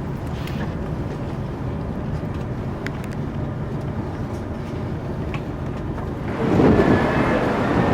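TGV Lyria high-speed train running with a steady low rumble and scattered light clicks, turning into a louder rushing noise about six seconds in.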